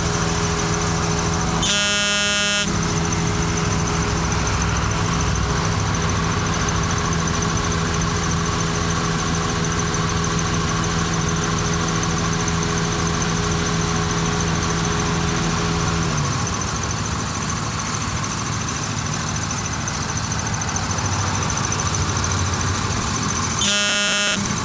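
A horn sounds once, about a second long, roughly two seconds in, and again near the end, over a steady mechanical hum that stops about two-thirds of the way through.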